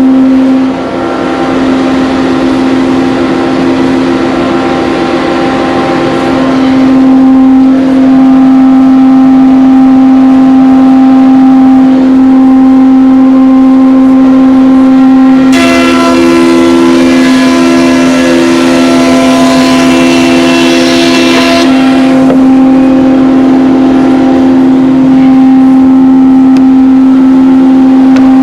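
Power planer running with a steady loud whine while it cuts an oak board held at an angle on a sled. The cut turns harsher and fuller twice: over the first several seconds and again for about six seconds past the middle, as the knives bite into the oak.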